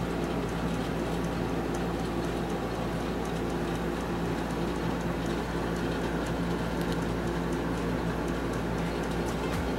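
A steady background hum with faint, light clicks and rustles as hands fold and pin a hem in black fabric.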